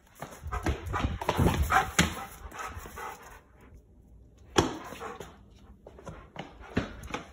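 Giant Schnauzer barking, a dense run of barks and vocal noise in the first three seconds, followed by a few short, sharp sounds.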